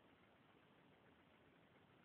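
Near silence: a faint, steady hiss with no distinct sounds.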